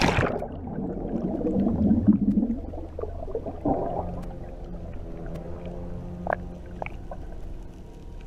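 A splash as the camera plunges underwater, then a rush of bubbles gurgling and churning, heard through the submerged camera. A second swirl of bubbles follows near four seconds, then softer underwater water sounds with a few small clicks.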